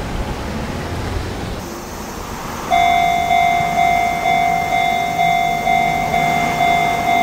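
Japanese railway level-crossing warning bell on the Enoshima Electric Railway, starting about three seconds in and dinging steadily about twice a second, with the crossing's red lamps flashing: the signal that a train is approaching and the crossing is closing. Before it there is a low rumble.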